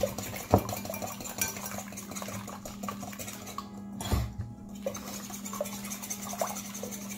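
Wire whisk beating eggs in a glass mixing bowl: fast, uneven clinking and rattling of the wires against the glass, with a louder knock now and then.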